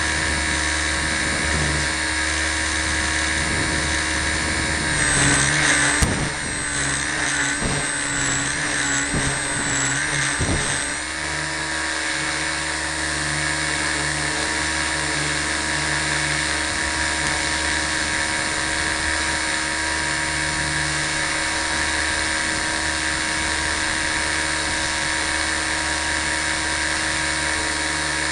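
Align T-Rex 250 micro electric RC helicopter running, its motor, gears and rotor giving a steady whine, heard from a camera strapped to the helicopter itself. Between about five and eleven seconds in the whine wavers and a few knocks come, then it settles steady again.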